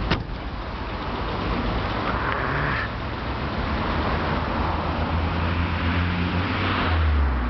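Citroën SM's Maserati V6 engine idling steadily, its low hum growing a little stronger near the end, with one sharp click just after the start.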